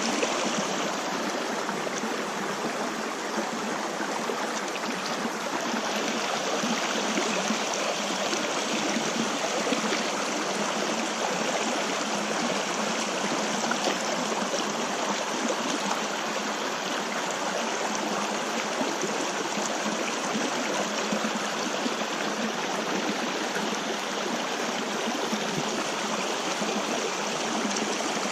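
Flowing stream water: a steady, unbroken rushing hiss.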